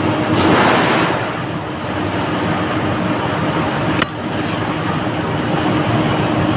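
Steady background noise with a constant hum, swelling briefly just under a second in, and a single sharp click about four seconds in.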